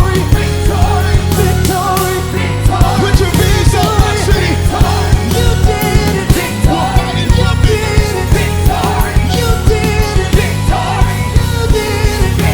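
Live worship band playing loudly with a steady drum beat and strong bass, with voices singing over it.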